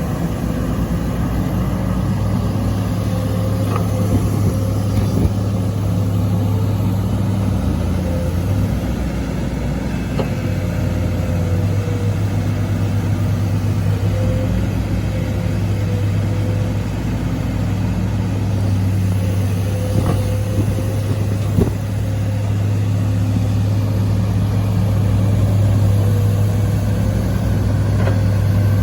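Excavator's diesel engine running steadily while it levels ground, with a steady whine above the engine note and a few short knocks scattered through.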